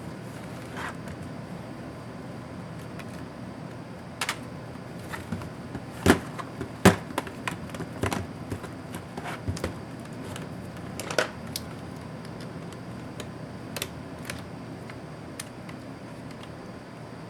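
Scattered clicks and taps of small tools and plastic laptop parts being handled during disassembly, with two sharper knocks about six and seven seconds in, over a steady low hum.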